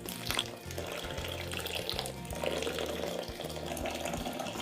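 Water poured in a steady stream into a cold brew brewing container over coarse ground coffee in a filter bag, with background music underneath.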